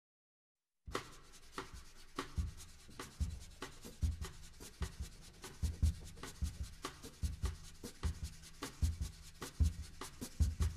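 Soft percussion starting about a second in after silence: scratchy, brush-like strokes with low thumps in a loose, uneven rhythm, the opening of a music track.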